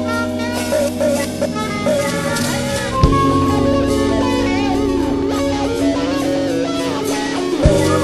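Live funk-jazz band playing: electric guitar lines over a held bass and drum groove, some notes gliding in pitch, with a sharp hit about three seconds in and another near the end.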